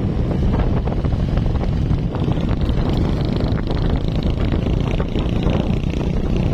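Wind buffeting the microphone on a moving motorcycle, over the steady rumble of the engine and road. A higher hiss grows louder about two seconds in.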